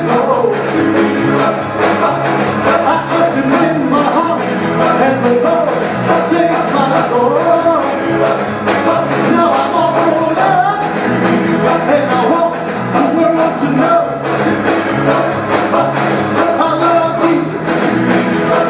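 A praise song with singing and a steady beat.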